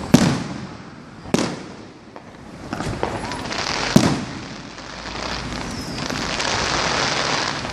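Fireworks going off: three sharp bangs, near the start, about a second and a half in, and about four seconds in, with a dense stretch of crackle in the second half.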